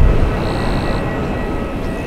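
A JAL Embraer E170's General Electric CF34 turbofans as the jet rolls out on the runway after landing: a steady deep rumble with a thin, steady whine above it.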